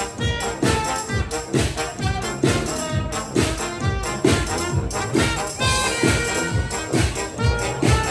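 Brass band music with a steady beat, about two beats a second.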